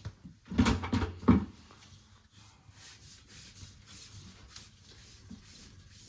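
A short cluster of knocks and clunks, like tools or parts being handled, about half a second to a second and a half in, then a faint low hum.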